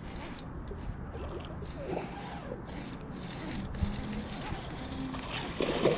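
Wind buffeting the microphone as a steady low rumble, with scattered faint rustling and handling clicks.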